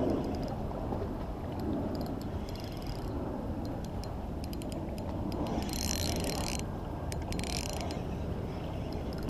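Spinning reel being cranked to reel in line under a bent rod, its gears ticking softly, over steady wind and water lapping on rocks. Two short hisses come a little past the middle.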